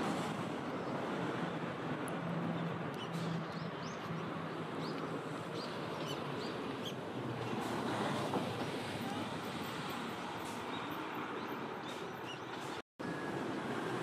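Steady outdoor background rumble and hiss, with faint, short high-pitched bird chirps scattered through the first half. The sound drops out completely for a moment near the end.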